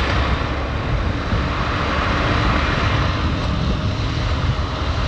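Steady rush of wind and road noise on the microphone of a moving motorcycle, with no sudden events.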